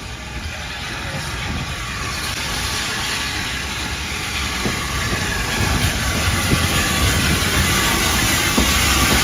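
Train running on the rails, a steady rumble and hiss that grows steadily louder.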